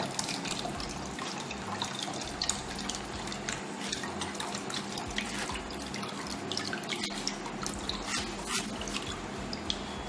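Blended rice water trickling and dripping through a fine plastic sieve into a bowl as it is strained, with many small drips and splashes throughout.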